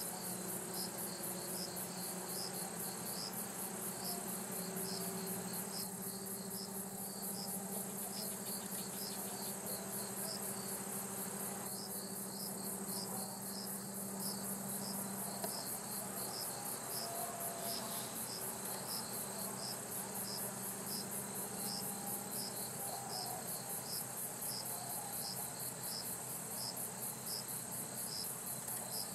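Chorus of singing insects: a steady high, fast-pulsing trill with another insect chirping regularly, roughly two chirps a second.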